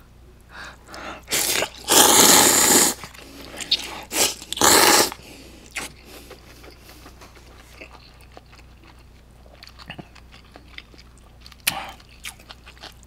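A person eating cold buckwheat naengmyeon noodles: three loud, breathy bursts of slurping and blowing over the noodles in the first five seconds, the middle one lasting about a second, then quiet chewing with small mouth clicks.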